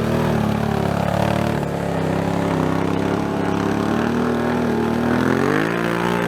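Side-by-side UTV engine running under throttle. Its pitch holds fairly steady, then rises as it revs up about five and a half seconds in.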